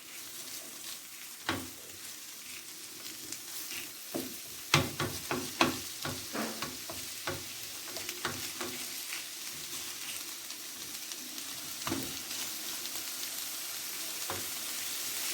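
Chicken, onion, carrots and diced red and yellow peppers sizzling in oil in a paella pan as they sauté, with a steady hiss. They are stirred, with repeated sharp knocks of a utensil against the pan, most of them in a cluster about five seconds in.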